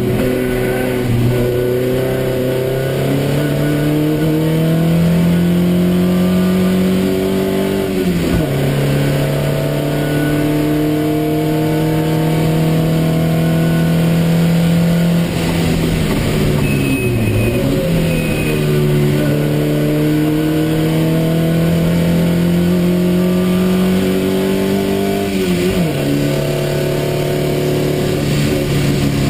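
TVR Vixen race car's engine, heard from inside the cockpit, running hard under full throttle. Its pitch climbs slowly and then dips sharply and recovers three times, about eight, seventeen and twenty-six seconds in. Wind and road noise run under it.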